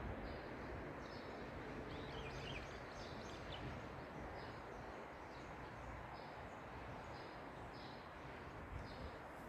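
Faint outdoor ambience: steady low background noise with a small bird giving short high chirps about once a second, and a brief trill about two seconds in.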